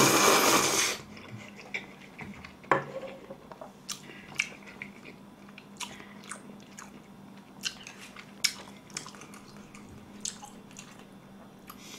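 A loud slurp of thick Chinese-style noodles for about the first second, then close-up chewing with scattered wet smacks and short sharp clicks.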